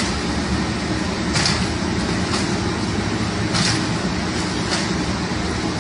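Steady low rumble of vehicle and street noise, with short scraping swishes every second or so as sacks are slid onto the stack.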